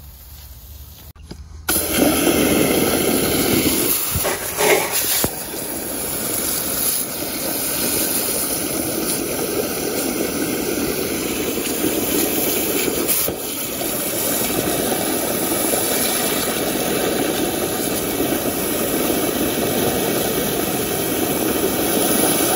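Garden hose spray nozzle blasting water into the open end of a PVC drain pipe, a loud steady hiss and splatter that starts suddenly about two seconds in. The water is flushing hard, packed grease out of a clogged kitchen drain line.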